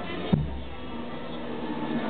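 Procession band music: long held notes, with a single low drum beat about a third of a second in.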